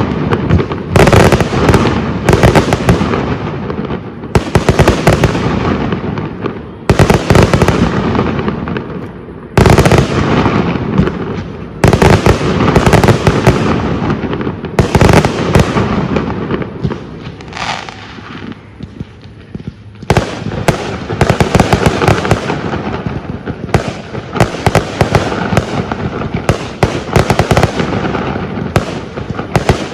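Aerial firework shells bursting in quick succession, sharp bangs each trailing off, in dense volleys with a short lull about two-thirds of the way through.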